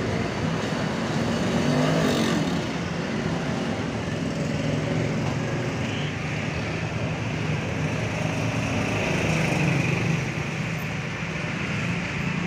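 Steady motor-vehicle noise: a constant low engine hum under a broad traffic hiss.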